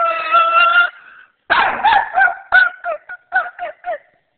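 Shih Tzu howling along as if singing: a long held howl slides down and stops about a second in, then after a short pause comes a run of about eight short yipping notes.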